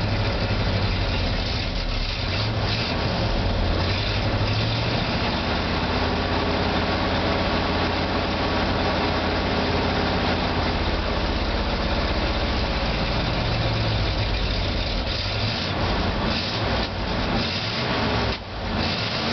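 1975 Ford F-500's 390 cubic-inch V8 idling steadily from cold, warming up with the choke on, heard from inside the cab.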